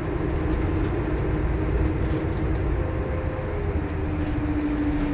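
Cabin noise inside a moving 2022 Nova Bus LFS HEV hybrid transit bus: a steady low rumble from the road and drivetrain, with a humming tone that steps down in pitch in the second half.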